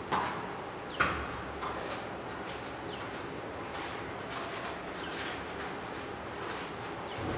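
Steady high-pitched insect drone, with a few sharp slaps of bare feet landing on a foam floor mat. The loudest slaps come at the start and about a second in, with fainter ones later.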